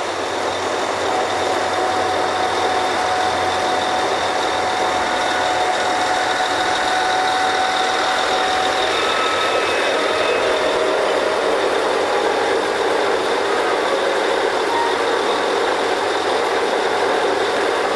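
Drilling rig machinery running steadily while drilling: a dense, continuous engine noise with faint steady whines over it.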